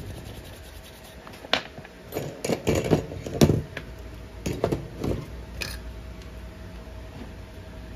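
Handling noise at a workbench: a brush scrubbing over a power-supply circuit board and tools being put down, heard as a string of short scrapes and light knocks through the middle, with a faint steady hum underneath.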